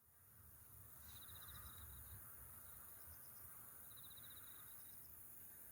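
Near silence of open-air ambience with a low rumble, broken by a few short, rapid chirping trills from insects every couple of seconds.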